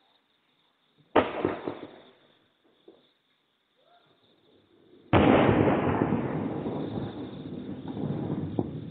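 Distant fireworks display: a first sharp bang about a second in, then a louder aerial shell burst about five seconds in whose boom rumbles on and slowly fades, with a small crack near the end.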